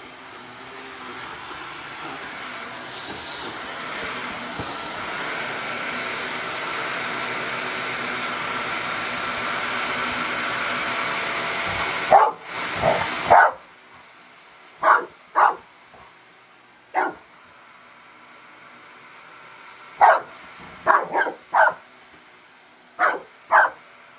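Upright vacuum cleaner running and growing louder, then switched off abruptly about halfway through. A dog barks at it, three quick barks just as it stops and then single barks and short pairs, about a dozen in all.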